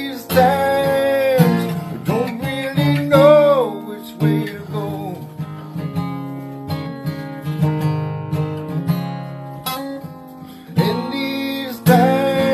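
Strummed acoustic guitar with a man singing long held notes over it near the start and again near the end, the guitar playing on alone in between.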